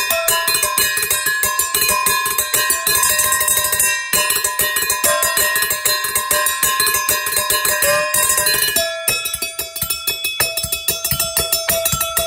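Improvised kitchen percussion: a kitchen knife beating a fast, steady rhythm on metal bowls and kitchenware, each stroke ringing with a bell-like metallic tone.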